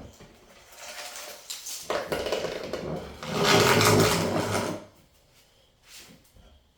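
Packaging being handled and unpacked: rustling and scraping, loudest in a dense burst of about a second and a half in the middle, then a few faint knocks.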